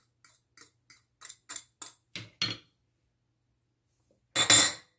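Metal fork tapping and scraping against a small ceramic dish to knock chopped scotch bonnet pepper out: short clicks about three a second, growing louder. Near the end, one louder clatter lasting about half a second.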